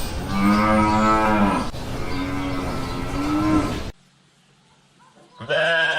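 Cow mooing twice, two long drawn-out moos over a noisy outdoor background that cuts off abruptly about four seconds in. A short, loud pitched animal call follows near the end.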